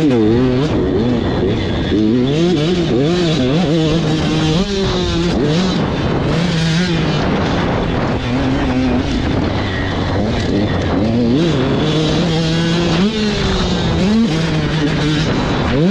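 Dirt bike engine heard close up from the bike itself, revving hard. Its pitch climbs and drops back in repeated sweeps as the throttle opens and closes.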